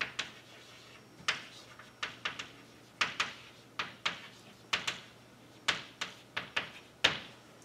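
Chalk tapping and scratching on a blackboard as a line of words is written: a run of sharp, irregular taps, about two a second, each with a short scratchy tail.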